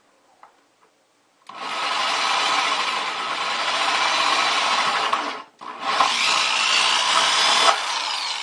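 Power drill with a hole saw cutting a hole through a bucket wall, in two runs with a brief pause between them.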